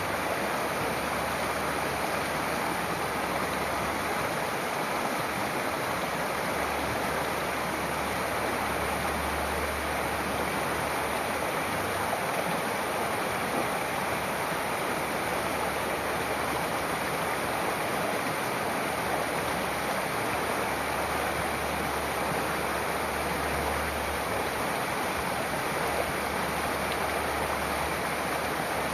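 Waterfall's water rushing steadily, a continuous even roar of falling and splashing water.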